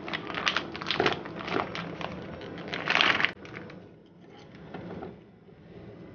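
Plastic packaging of fried fish balls crinkling and crackling as it is handled, cutting off abruptly a little over three seconds in. After that, only faint sounds of chopsticks stirring fish balls in a bowl of beaten egg.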